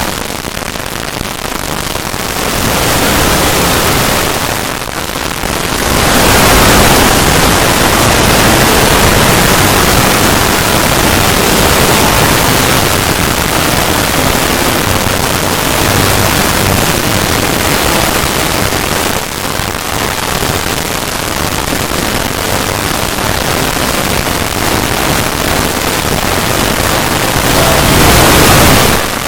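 Loud, harsh static-like noise covering all pitches, with brief drops in level about five seconds in and again about nineteen seconds in.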